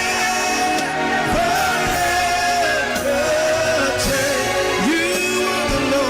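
Worship music: a singer holding long notes that slide between pitches, over steady instrumental backing.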